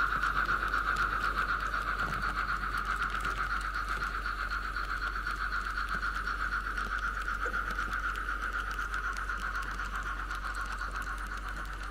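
Märklin H0 model steam locomotive running past on the layout: a steady, rapid rhythmic pulsing, several beats a second, that slowly fades toward the end.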